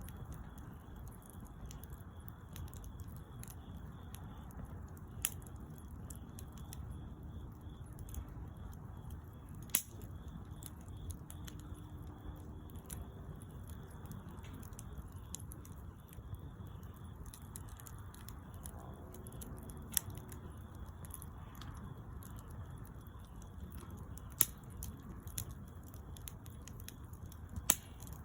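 Campfire burning: a low steady rumble with sharp crackles and pops every few seconds.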